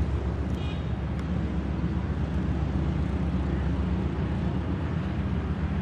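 Steady low diesel engine rumble from an approaching ZCU-30 diesel-electric locomotive, with a brief high chirp about half a second in.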